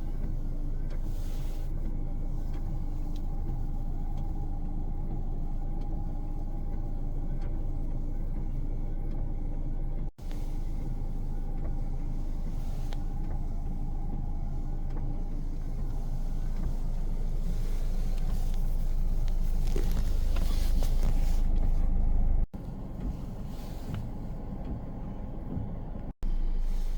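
Strong wind buffeting the microphone on a stormy beach: a loud, deep, steady rumble that swells for several seconds near the end. It cuts off sharply a few times and starts again.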